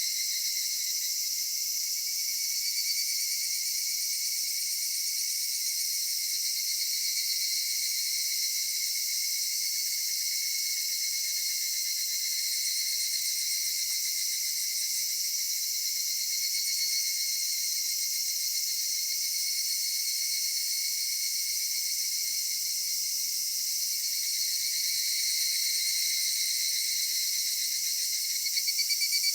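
A chorus of cicadas buzzing steadily at summer dusk, several high overlapping bands of sound. Near the end one grows louder with a fast pulsing.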